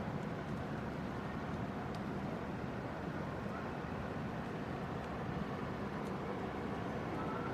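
Steady city ambience: a constant low rumble, like distant traffic and machinery, with no distinct events standing out.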